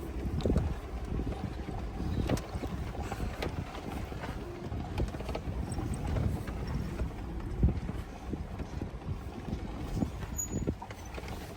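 Vehicle driving over a rough, bumpy track: a steady low rumble with scattered knocks and rattles.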